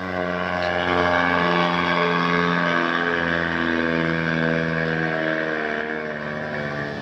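Diesel engine of a heavily loaded small truck labouring up a steep grade, held at steady high revs in a low gear: a steady pitched note that wavers slightly and eases a little near the end.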